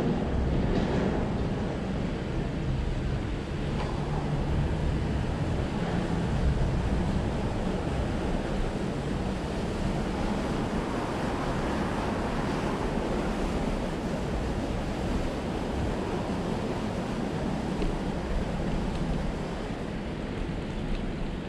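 Wind buffeting the microphone of a camera on a moving bicycle: a steady deep rush of noise with no clear tones.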